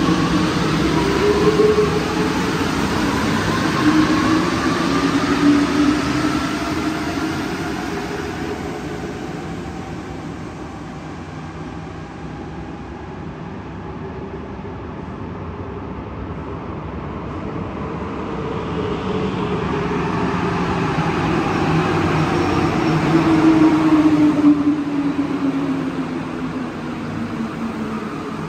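Rubber-tyred Alstom metro trains on Santiago's Line 2. In the first seconds one train moves off with its motor whine rising in pitch and fades away. After a lull, another comes in, loudest about 24 seconds in, its motor tones falling in pitch, and then eases off.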